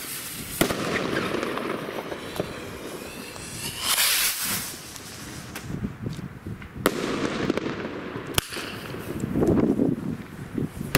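A Cafferata Mad Dog Thunder Rocket, a salute rocket carrying only a bang, being fired. The lit fuse sizzles, the rocket takes off with a rushing whoosh about four seconds in, and sharp bangs crack out near seven and eight seconds in.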